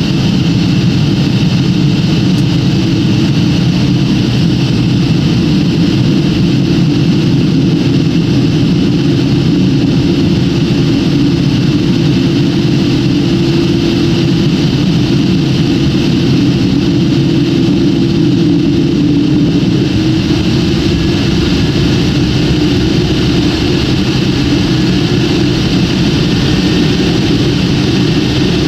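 Steady cabin noise of an airliner on the ground after landing, its jet engines idling, heard from inside the cabin as an unchanging low hum with hiss.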